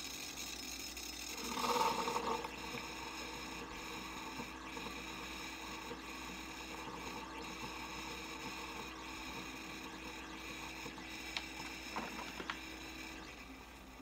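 Single-serve pod coffee maker pumping hot water into an instant noodle bowl: a steady mechanical hum with running water, louder for a moment about two seconds in. A few light clicks come near the end, and the hum stops shortly before the end as the dispensing finishes.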